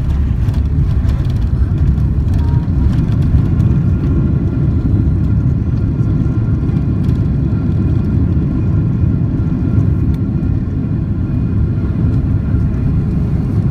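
Airliner cabin noise during the landing rollout: a steady, loud low rumble of engines and wheels on the runway, heard from inside the cabin, with a faint steady whine above it.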